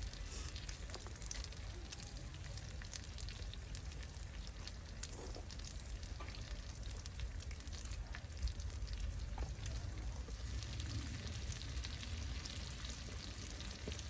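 Food frying: a steady sizzle with fine crackles throughout.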